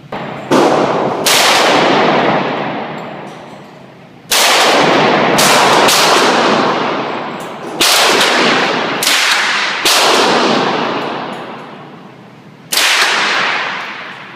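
Nine gunshots fired at an irregular pace, some in quick pairs and others a few seconds apart. Each crack rings out in a long echoing decay in the enclosed indoor range.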